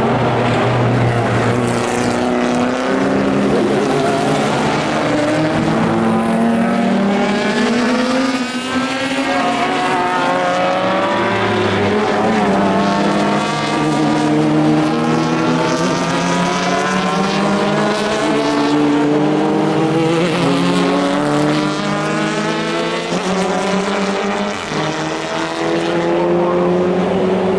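Racing cars' engines accelerating past one after another, often several at once, each note rising in pitch and dropping back at the gear changes.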